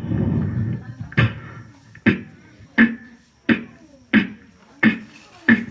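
Beatboxer's mouth-made sound effects: a short rough, noisy vocal sound, then evenly spaced sharp percussive hits, about one and a half per second, each with a brief low pitched ring.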